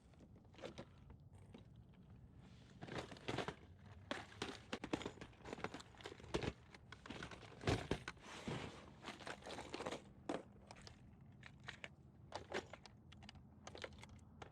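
Irregular small clicks, knocks and rustles of fishing gear being handled on a kayak, as a lure is changed over to a squarebill crankbait.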